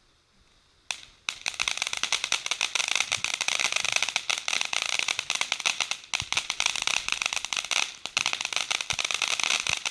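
A firework going off: a sharp pop about a second in, then dense, continuous crackling made of many tiny rapid cracks, with a couple of brief dips along the way.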